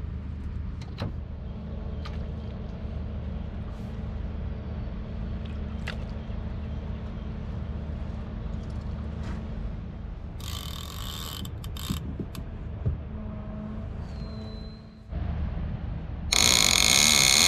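Fishing reel ratcheting as a fish pulls line from it: a short run about ten seconds in, then a loud, continuous run starting near the end, a fish the angler guesses is not a ray. Under it, a steady low hum that stops just before the last run.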